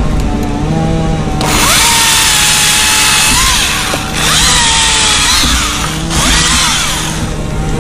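Top-handle chainsaw idling, then throttled up to full revs about a second and a half in and held, dropping off briefly twice and revving back up each time, before easing back to idle near the end.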